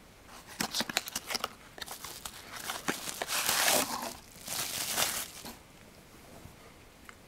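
Packaging being crinkled and torn open by hand: a run of sharp crackles, then two longer tearing rustles about three and four and a half seconds in.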